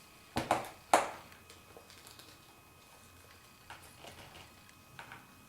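Plastic doll leg being pushed onto a Monster High doll's body: a couple of clicks about half a second in, then a sharp click at about one second, the loudest. Faint handling taps of the plastic parts follow.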